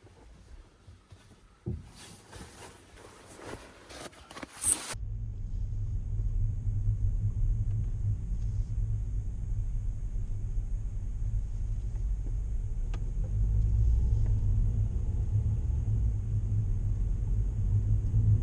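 Quiet rustling and clicks, then a sharp click about five seconds in, followed by a steady low rumble of a car heard from inside the cabin as it drives.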